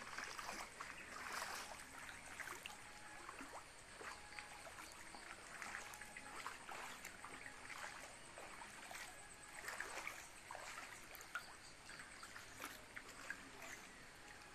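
Faint trickling water with irregular small splashes and crackles.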